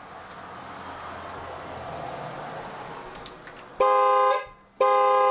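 Faint steady hiss for a few seconds, then a car horn honks twice in short blasts about a second apart.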